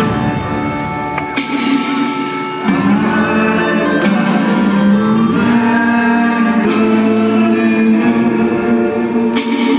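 Live rock band playing a slow song, guitar and singing over a sustained bass, heard from the audience in a large hall. The band comes back in fuller about three seconds in.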